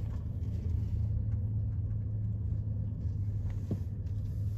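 Steady low rumble of a car's engine and tyres heard from inside the cabin, with one faint click about three and a half seconds in.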